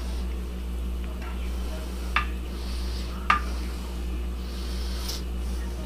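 A spoon scraping and spreading thick fudge in a glass baking dish, with two sharp taps against the glass about two and three seconds in and a fainter one near the end, over a steady low hum.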